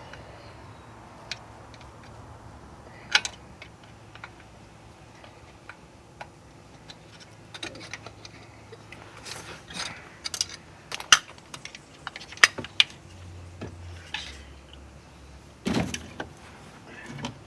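Scattered metallic clicks, taps and scrapes of a screwdriver and hand tools working at a steel oil pan that is stuck to the engine block with RTV silicone, as it is pried loose. The clicks come thickest in the middle, and there is a heavier clunk near the end.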